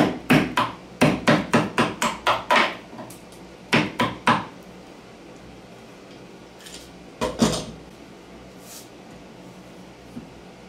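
Wood chisel cutting a notch in a clamped wooden piece: a quick run of about ten sharp knocks and cracks of the chisel driving into the wood, then a couple more around four seconds in and again about seven seconds in.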